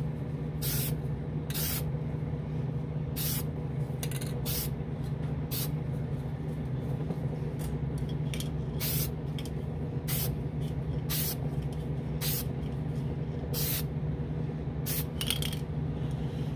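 Short hissing blasts from a Testors Extreme Lacquer aerosol spray can, many brief bursts roughly one a second, laying on light dust coats. Under them runs the steady hum of the spray booth's exhaust fan.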